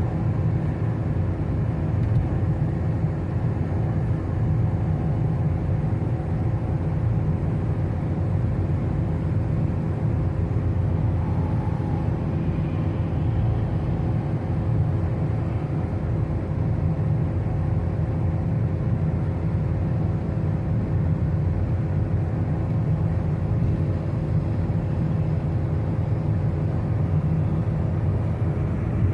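Car driving at a steady speed: a constant low road-and-engine rumble with a faint steady hum over it.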